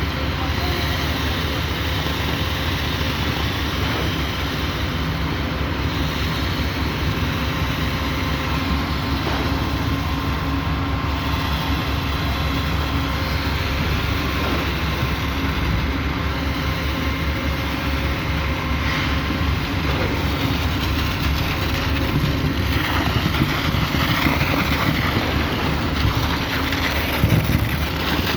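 Heavy diesel truck engine running steadily under load, a dense low rumble with mechanical clatter on top; a few louder knocks near the end.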